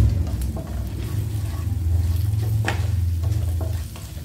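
A wooden spatula stirring and scraping spices frying in oil in a non-stick pan, with a few sharp scrapes against the pan, over a steady low rumble that drops away near the end.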